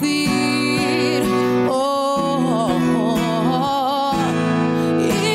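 Christian song with acoustic guitar and a singing voice. A sung melody with wavering pitch comes in about two seconds in over held chords.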